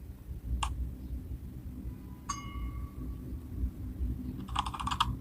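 Mechanical sound-effect samples playing: one sharp click, then a short bright metallic ding that rings for about half a second, then rapid clicking like typing on a keyboard near the end.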